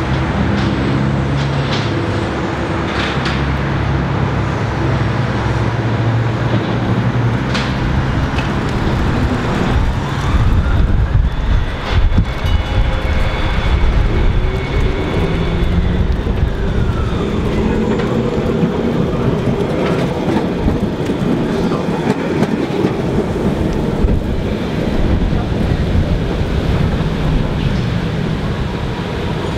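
Vintage W-class City Circle tram running along street tram tracks, its wheels and running gear rumbling, mixed with passing road traffic. A whine rises and then falls in the middle.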